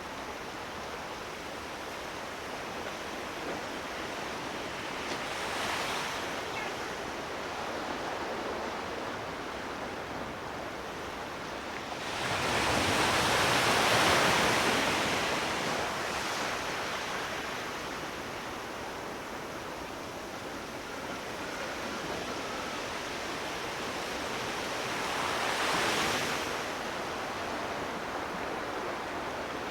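Sea waves breaking and washing in as a steady surf hiss. A large wave breaks about twelve seconds in and swells for several seconds, the loudest moment, with smaller waves around six seconds and again near the end.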